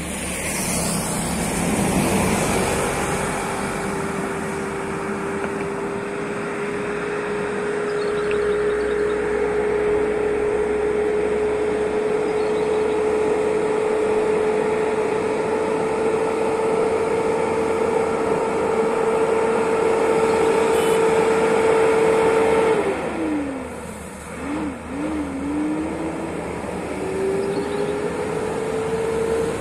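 Kenworth heavy truck's diesel engine labouring uphill, its note climbing slowly. About 23 seconds in the revs drop sharply and waver at a gear change, then climb again.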